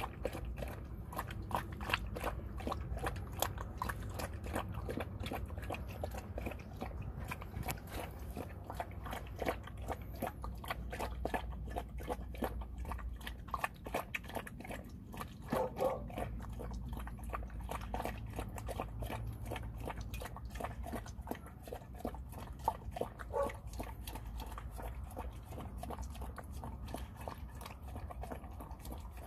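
Dog eating soft seafood jjamppong noodles from a metal pan: a steady run of quick, wet licking, chewing and tongue clicks as it laps the food up off the pan.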